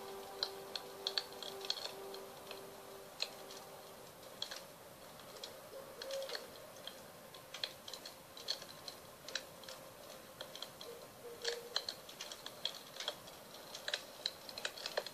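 Wood fire crackling with irregular sharp pops, while the lingering tone of a singing bowl dies away over the first few seconds.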